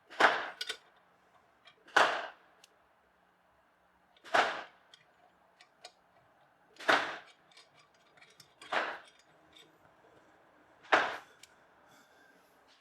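Six short hissing bursts, each cut off within about half a second, coming about every two seconds.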